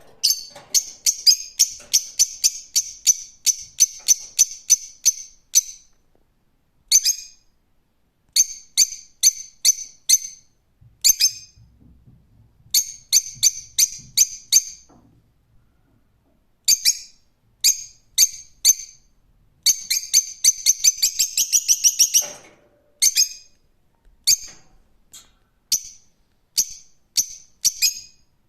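Lovebird calling: runs of sharp, high-pitched chirps, about three or four a second, broken by short pauses. About two-thirds of the way through comes a faster run of chirps that climbs in pitch.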